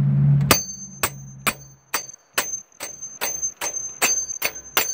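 Hammer tapping a seating tool to drive a new injector sleeve (cup) into the cylinder head of a Caterpillar 3126 diesel: a quick series of about a dozen sharp metal-on-metal strikes, about two a second, each with a high ringing ting. The hammer bouncing back with a ting is the sign that the sleeve is seated.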